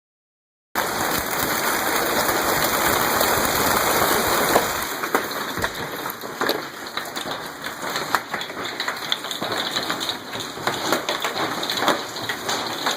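Hailstorm with rain pelting down, starting abruptly just under a second in as a dense, steady rush. About five seconds in it thins to a patter of many separate sharp hailstone impacts.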